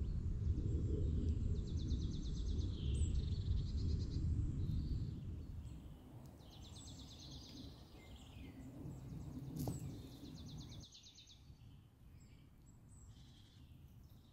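Small woodland birds singing, with several rapid trills, over a low rumbling background that fades away about halfway through.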